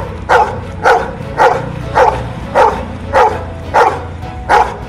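Golden retriever barking over and over at an even pace, about two short barks a second, eight or nine in all.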